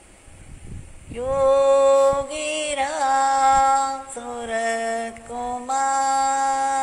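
A woman singing a slow devotional chant in long held notes, starting about a second in and stepping from one sustained pitch to the next.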